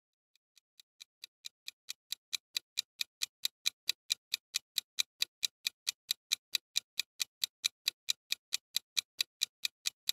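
Egg-timer ticking sound effect: rapid, even ticks, about four to five a second, fading in over the first two seconds and then steady. It is the countdown tick of a quiz timer.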